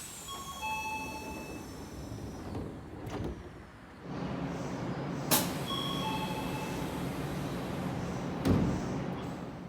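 Odakyu Line train door chime: a falling two-note ding-dong, heard twice about five and a half seconds apart, over a steady train noise. A sharp clack comes just before the second chime, and a heavy thump, the loudest sound, near the end.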